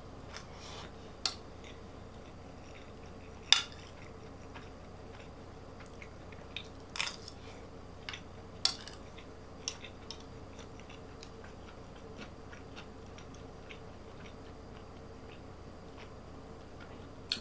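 Someone eating: a few sharp clinks of utensils against a dish and soft chewing between them, over a faint steady hum.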